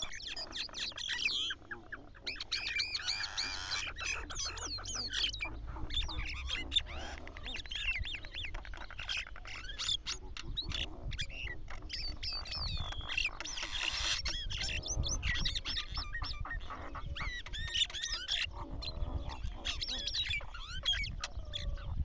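Mynas calling: a busy, continuous mix of short whistles, squawks and clicking notes.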